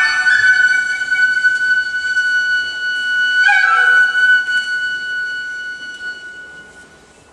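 Japanese bamboo transverse flute (fue) playing two long, high held notes. The second note starts about halfway through and fades away near the end.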